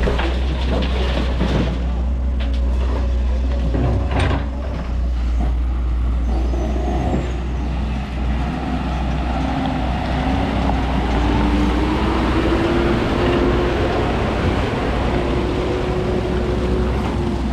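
Heavy diesel engines running steadily. In the first few seconds there are knocks of earth and rock being dropped from an excavator bucket into a tipper body, then an engine tone that rises as a loaded tipper truck pulls away.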